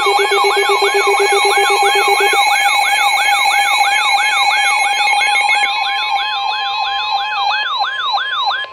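Emergency alert alarm sounding before a severe thunderstorm warning: a siren-like tone sweeping about three times a second over held steady tones, with a pulsing lower beep that stops about two and a half seconds in. The alarm cuts off just before the end.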